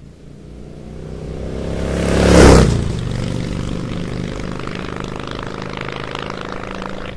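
An engine running, swelling in loudness to a peak about two and a half seconds in, then holding a steady drone.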